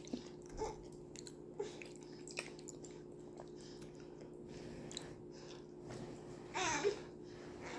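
Chewing fufu and chicken stew close to the microphone: soft mouth clicks and smacks a few times in the first seconds. Near the end comes a short high vocal sound from a young child.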